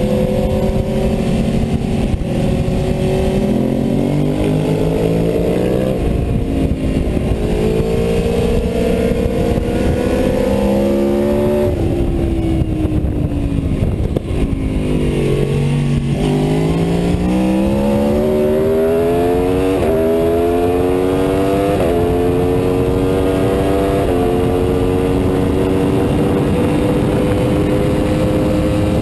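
Aprilia Tuono V4's 65-degree V4 engine under hard acceleration, heard onboard with wind rushing past. Its pitch climbs and steps down at each upshift, falls through a run of downshifts in the middle, then climbs again through three quick upshifts and holds high near the end.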